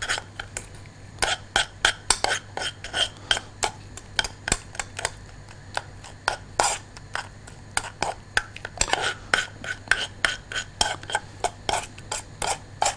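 Spoon stirring and scraping inside a small nonstick saucepan, mixing butter and spices into mashed garlic: rapid, irregular clicks and scrapes against the pan, a few a second.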